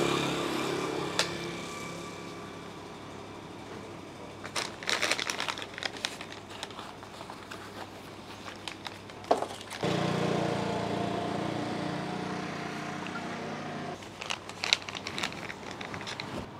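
Plastic packaging crinkling in two short spells, with a click or two between them. A steady low hum comes in about ten seconds in and stops about four seconds later.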